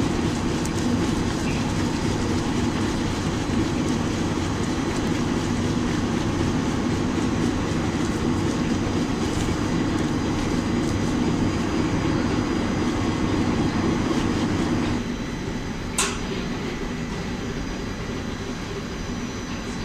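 Machinery of a corn flakes roasting line running, with toasted flakes pouring across its stainless-steel chute and tray: a steady, dense mechanical noise. About 15 s in it drops noticeably quieter, and a sharp click follows about a second later.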